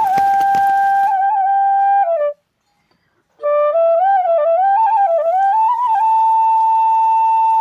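Background music of a solo flute, holding long notes with small turns and slides. It stops briefly about two seconds in, then plays a wavering phrase that settles on a long held note. A soft hiss sits under it for the first second.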